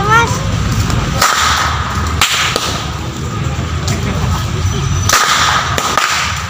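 Long pecut whips cracked one after another: three loud, sharp cracks about a second, two seconds and five seconds in, each with a short ringing tail, and a fainter crack near the end. A steady low rumble runs underneath.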